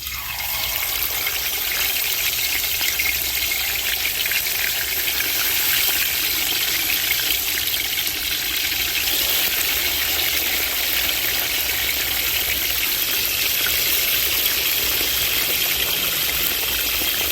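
Snapper frying in hot oil at about 350 °F: a loud, steady sizzle.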